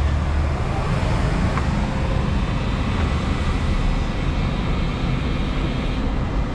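Steady low rumble of street traffic while a coffee vending machine dispenses coffee into a paper cup, with a couple of faint clicks from the machine about one and a half and three seconds in.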